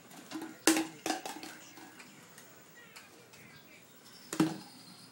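A few sharp knocks on a wooden playpen rail, three close together about a second in and one more near the end, each with a short ringing note.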